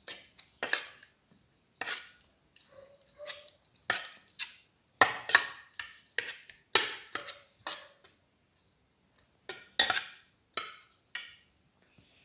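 Metal slotted spoon knocking and scraping against a bowl while mashing cooked potato and garlic into a paste, in irregular strokes with short pauses.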